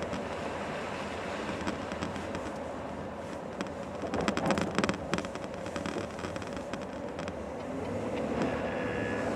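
Interior noise of a Mercedes-Benz W140 driving slowly on snowy ground: a steady engine and tyre rumble, with a burst of crackling about four to five seconds in.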